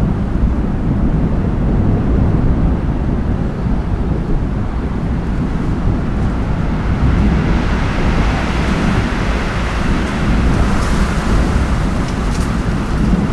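Gusty storm wind buffeting the microphone with a heavy low rumble, and a hiss that swells from about seven seconds in. A few faint clicks come near the end.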